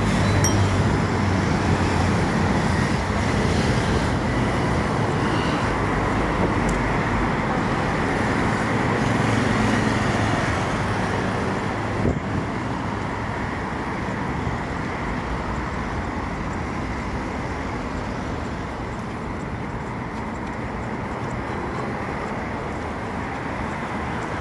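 Steady city road traffic: cars passing along a boulevard, with the low engine hum of nearby vehicles, loudest in the first half and easing off a little after about twelve seconds.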